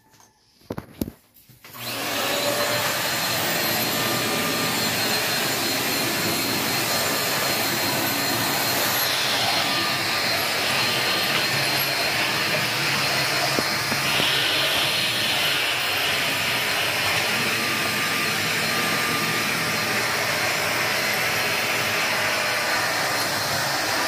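A few light clicks, then a Deerma corded stick vacuum cleaner starts about two seconds in and runs steadily as it vacuums the floor. Its hiss grows brighter and higher partway through.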